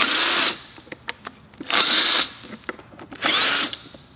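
Cordless power driver spinning out timing-cover bolts in three short runs of about half a second each, its whine rising as it spins up. Light clicks come between the runs.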